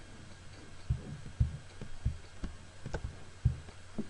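A series of soft, low thumps and a few sharper clicks, about seven in four seconds at uneven spacing, close to the microphone over a steady low electrical hum.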